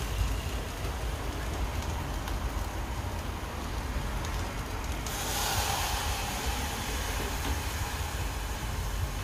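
Food sizzling in a pan on the stove over a steady low rumble; the sizzle grows louder and brighter about five seconds in.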